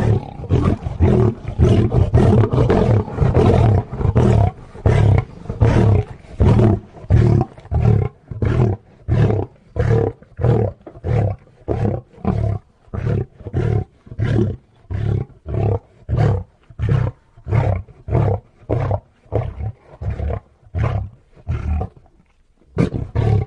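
Lion roar sound effect: a long run of short, deep roaring pulses, about two a second, somewhat weaker after the first few seconds, with a brief break near the end.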